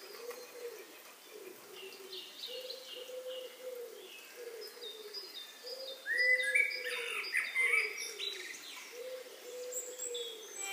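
Background music: a gentle melody of short, evenly repeating low notes, with higher notes joining in about halfway through.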